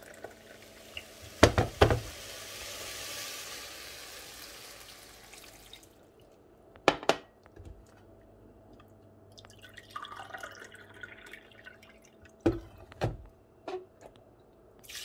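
Water being poured to measure it into a drinking glass and into a cooking pot: a splashing pour lasting several seconds, a shorter pour about ten seconds in, and several sharp knocks as the glass and pot are set down and handled on the ceramic hob.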